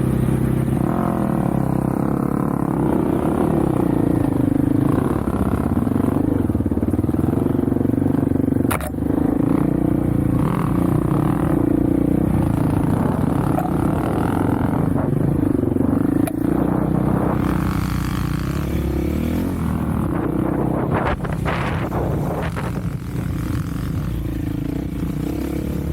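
Off-road vehicle engine running as it is ridden along a trail, its pitch rising and falling with the throttle. There is a single knock about nine seconds in and some clattering near the end.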